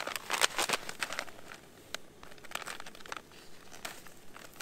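A crinkly plastic food packet being handled, crackling in short irregular bursts, densest in the first second.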